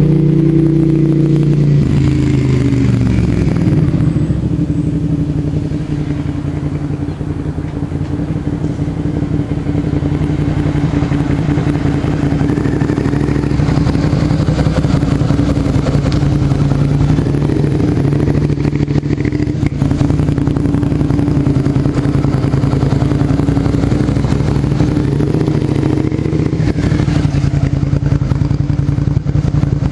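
Motorcycle engine running. Its note drops in the first few seconds, then holds at a steady pitch.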